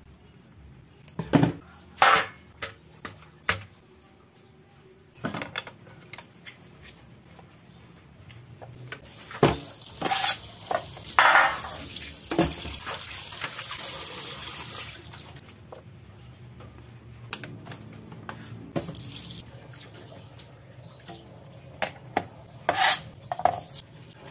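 Sharp clicks and clatters of kitchen shears, a plastic tub and utensils against a stainless steel sink, with a tap running for about six seconds near the middle.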